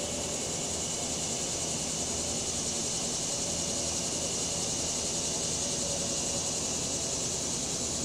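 Cicadas droning steadily and high-pitched, over a low rumble of highway traffic and breeze.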